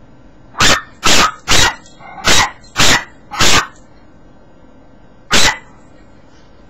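Yorkshire terrier barking: six sharp, quick barks about half a second apart, then a single bark near the end.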